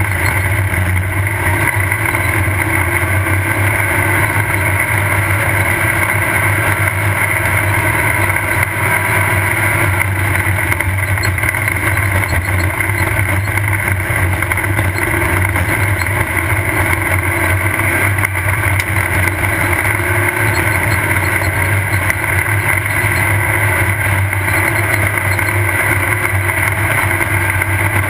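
Off-road race car running steadily at speed, heard from on board: a loud, even engine drone.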